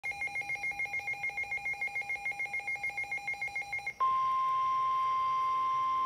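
Midland WR-300 weather radio's alert beeping rapidly, about eight beeps a second. About four seconds in it switches to the steady single-pitch NOAA Weather Radio warning alarm tone, which signals that a warning broadcast is starting.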